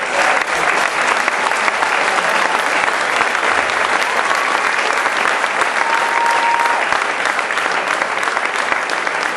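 Audience applauding steadily, a dense even patter of many hand claps, with a short steady high note about six seconds in.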